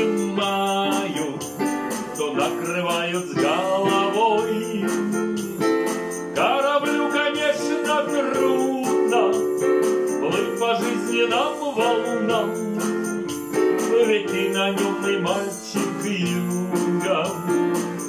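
Music played on a Casio digital keyboard: sustained chords and a sliding melody line over a steady percussion beat.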